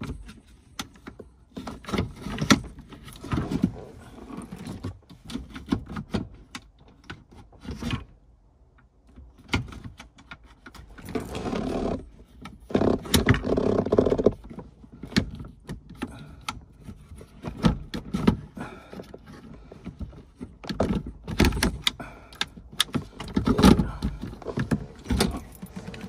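Irregular clicks, knocks and metallic rattling as the gear shifter of a 2013 Nissan Pathfinder is worked into park, with denser, louder handling noise about eleven seconds in and again near the end.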